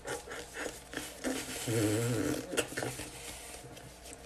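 Soft squishing and patting of a ball of bagel dough being pressed and rolled between the hands. A man's voice gives a brief low hum about halfway through.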